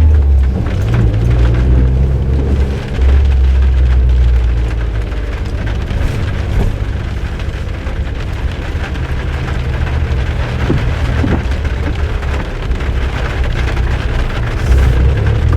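Suzuki Jimny JB23W's 660 cc turbocharged three-cylinder engine droning as the car drives, its pitch shifting a few times, under a steady rush of tyre and road noise, heard from inside the cabin.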